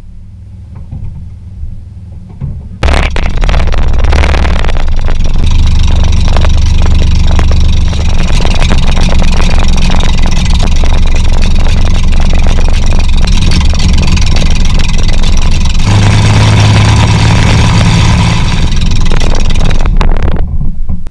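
A 3.0-litre Corvair air-cooled flat-six aircraft engine, turned over for a few seconds and then catching about three seconds in, running steadily while its ignition timing is set toward 28 degrees before top dead centre. Its note shifts about sixteen seconds in, and it is shut off abruptly near the end.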